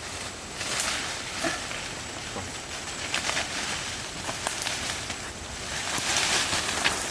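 Dry vegetation rustling, with many small snaps and clicks scattered through it and louder swells about a second in and near the end.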